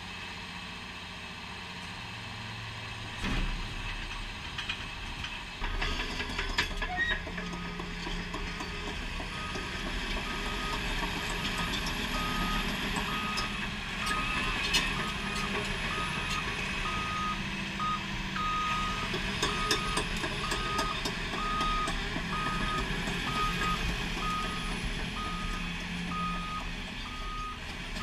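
Cat 336E hydraulic excavator at work: its diesel engine runs and picks up about three seconds in as the machine swings, and from about nine seconds on its motion alarm beeps steadily, a little more than one beep a second.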